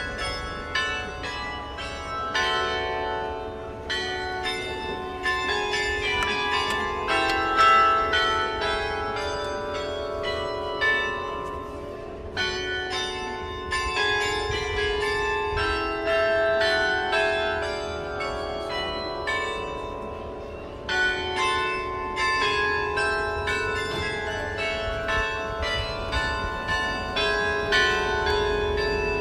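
Bells in a town-hall clock tower playing a tune, many ringing notes overlapping in phrases with fresh strikes every few seconds. This is the chime that marks the hour.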